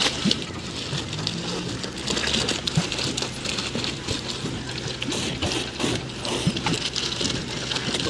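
Wet concrete gushing and splattering out of a concrete pump's end hose onto a slab, over a steady low engine hum.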